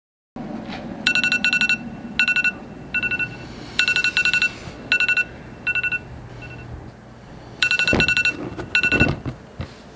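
Electronic alarm clock beeping in quick clusters of three or four beeps, a cluster about every second. Near the end it is slapped twice with a dull thump, and the beeping stops.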